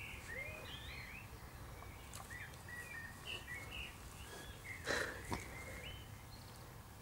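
Small birds chirping, with short rising and falling calls, over a low steady rumble. About five seconds in come two short, louder rustles from a pot-bellied pig grazing with its snout in the grass.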